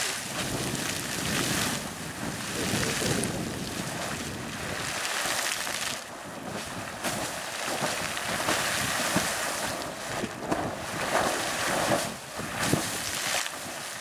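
Sawmill Geyser, a fountain-type geyser, erupting: overlapping spikes of boiling water splash up and fall back into its pool in a continuous rushing splash that swells and eases.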